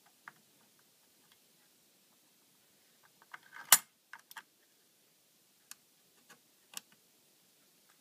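Small metallic clicks of an LGA775 CPU socket's steel load plate and retention lever being closed over a freshly seated Pentium D. There is one sharp snap a little under four seconds in, and a few lighter clicks follow.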